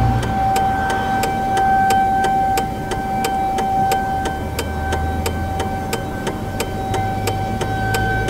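Nuclear plant outdoor warning siren sounding a steady tone during a test. Under it runs the low rumble of an idling pickup truck, with a regular ticking of about three clicks a second.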